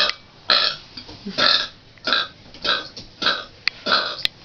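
A child forcing a string of short, breathy little burps, about two a second.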